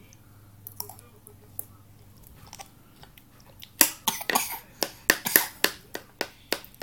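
A toddler eating by himself: from about halfway through, a quick run of sharp clicks and knocks, about three a second.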